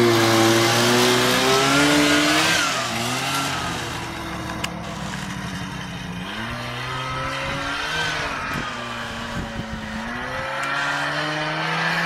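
Ockelbo Poro snowmobile engine running while being ridden, its pitch rising and falling several times as the throttle is opened and eased. It is loudest in the first few seconds and a little quieter after that.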